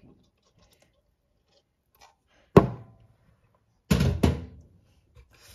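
Kitchen containers being handled on a counter: a single sharp thunk about two and a half seconds in, then two knocks close together about a second later, with a short ringing tail.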